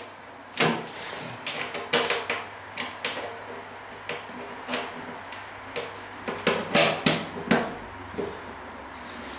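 Clanks and knocks of the belly pan being fitted back onto the underside of a Simplicity 924 snowblower: about a dozen sharp knocks at irregular intervals, with a quick cluster about six and a half to seven and a half seconds in.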